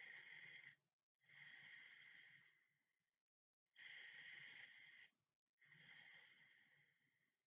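Faint, slow, even breathing of a sleeping person, heard as soft rushes of air. Breaths in and out alternate, each lasting one and a half to two seconds, with a full breath cycle roughly every four and a half seconds.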